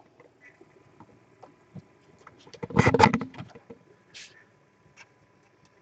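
Small hard objects being handled on a tabletop: a few scattered light ticks, then a quick rattle of clicks lasting about half a second, about three seconds in.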